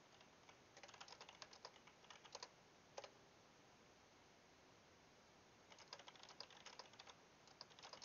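Faint typing on a computer keyboard: a run of quick keystrokes ending in a single sharper click about three seconds in, then a pause of a couple of seconds, then another run of keystrokes near the end.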